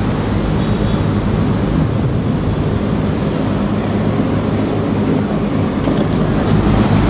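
VRF outdoor condenser units running steadily in their commissioning test run, fans blowing, with a constant low hum under the rush of air.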